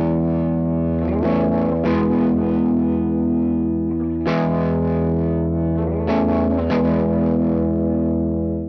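Electric guitar run through a Stambecco effects preset, playing two long ringing chords, the second struck about four seconds in, with a few extra notes picked over each; the second chord fades out at the end.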